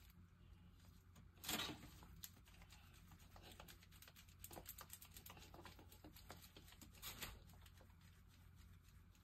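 Faint, scattered small clicks and taps of objects being handled, with two louder rustling bursts, one about a second and a half in and one near seven seconds.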